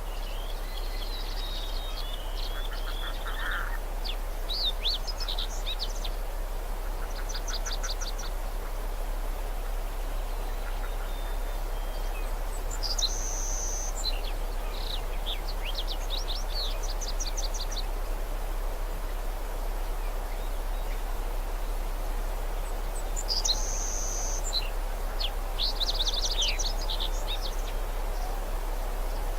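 Birds calling in spells of rapid high chirps and trills, three or four times about ten seconds apart, over steady background noise and a constant low hum.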